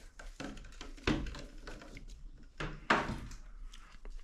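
Belongings being handled and set down: two sharp knocks, one about a second in and another near three seconds, with lighter clicks and rustling between them.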